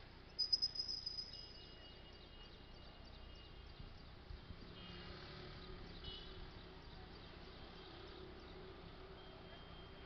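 Faint outdoor ambience with a short run of high, thin chirps about half a second in, and a few fainter high chirps and tones later.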